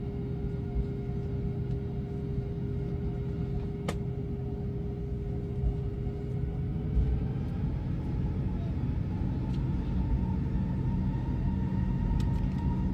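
Airbus A321 jet engines heard as a low, steady rumble with a hum, from inside the cabin. About halfway through, the engine whine starts to rise slowly in pitch as the engines spool up. There is a single sharp click about four seconds in.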